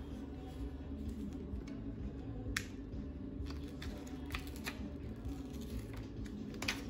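Handling of vinyl wrap film and its paper backing: a few short, sharp ticks and crackles as the backing is peeled and the film is pressed onto the plastic, over a quiet, steady low background that is likely faint music.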